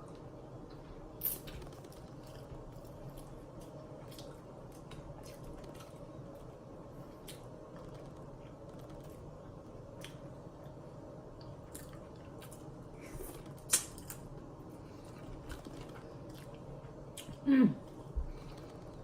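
A person eating seafood boil close to the microphone: scattered wet clicks and lip smacks over a steady low hum, with a short, loud vocal sound falling in pitch near the end.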